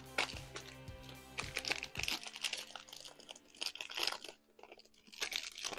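Foil booster-pack wrapper crinkling and crackling as it is torn open and the cards are drawn out, in several short bursts, over soft background music.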